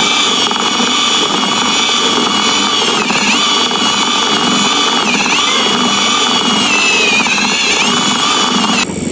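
A machine motor running steadily with a high whine, its pitch dipping briefly a few times.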